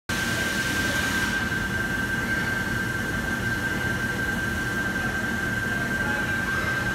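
Steady machinery noise of an industrial robot cell, with a constant high-pitched whine over a low hum. The upper hiss drops away about a second in.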